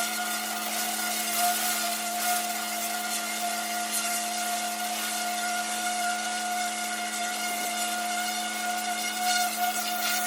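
Pressure washer running at a steady pitch, its water jet hissing as it blasts dirt off a brick driveway.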